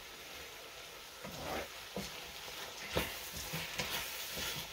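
Chicken, mushrooms and rice sautéing in a stainless steel pan with a steady sizzle, broken by a few scrapes and knocks of a wooden spoon stirring them, the loudest about three seconds in.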